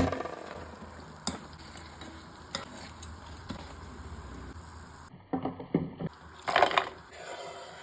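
Food frying in a pan with a steady, faint sizzle, broken by a few sharp clicks of a utensil. Near the end comes a short run of knocks and stirring against the pan.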